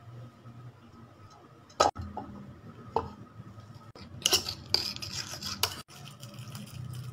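Metal spoon and fork clinking and scraping against a ceramic bowl as banana is mashed, with a sharp knock about two seconds in and a burst of quick clattering near the middle.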